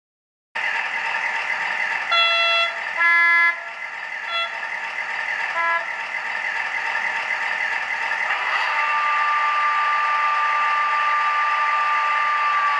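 Sound-decoder playback from an H0 model of a MaK DE 2700 diesel locomotive, heard through the model's small speaker: the diesel engine sound comes on suddenly about half a second in and runs steadily, with two horn blasts about two and three seconds in and two short toots after. From about eight and a half seconds an air compressor whine joins the engine and holds steady.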